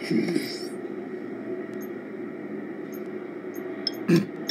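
Animated episode's soundtrack between lines of dialogue: a low steady ambient hum with faint high chiming pips every second or so, a short whoosh at the start and a sharp knock about four seconds in.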